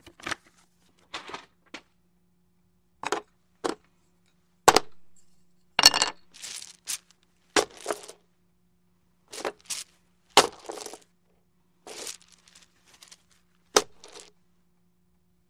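Board game pieces and box parts being handled and set down: a string of separate sharp clacks and clinks with short rattles, about a dozen over the stretch. One near the five-second mark rings out for about a second.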